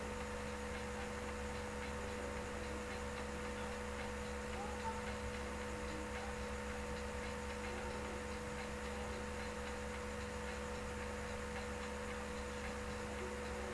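Steady electrical hum with a constant hiss, the background noise of the recording setup, with a brief faint blip about five seconds in.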